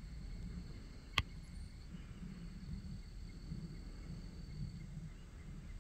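Outdoor ambience of insects trilling steadily at a high pitch over a low background rumble, with one sharp click about a second in.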